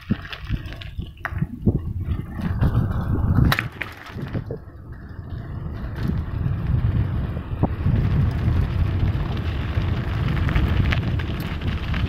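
Wind rumbling on a phone's microphone as it is carried along at speed. Knocks and crackles from the phone being handled come in the first few seconds, then the rumble is steadier.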